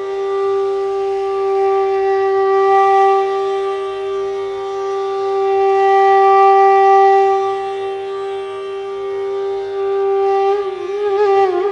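Carnatic-style background music: a wind instrument holds one long steady note for about ten seconds, swelling and easing in loudness, then begins to waver and slide near the end.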